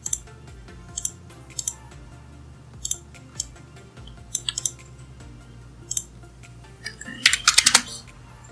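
Computer mouse clicking, each click a quick press-and-release pair, about once a second, with a fast run of clicks about seven seconds in. Soft background music plays underneath.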